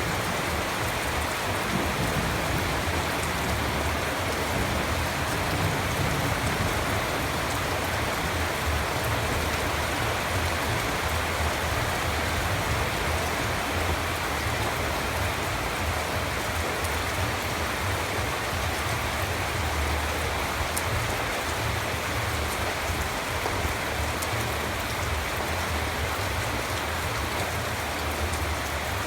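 Steady rain falling and pattering on surfaces, with scattered faint drop ticks.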